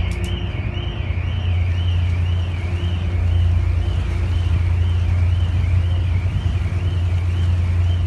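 Ferry's engines drone steadily with wind on the microphone and the rush of the wake, while a high electronic tone warbles up and down about one and a half times a second, like a car alarm.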